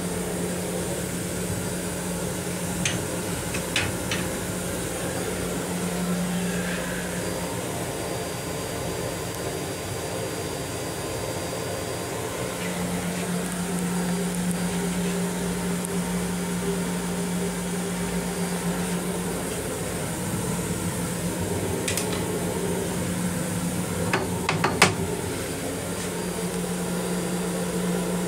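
Steady low mechanical hum and rumble of an M7 electric railcar's equipment and ventilation inside its small restroom, the drone weakening and returning a few times. A few sharp plastic clicks and knocks come through it, the loudest near the end, as the loose toilet seat is handled.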